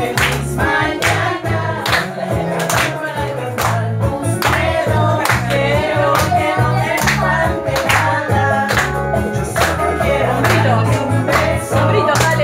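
Karaoke backing track with a steady beat and bass, and a boy singing along into a microphone, with hand clapping.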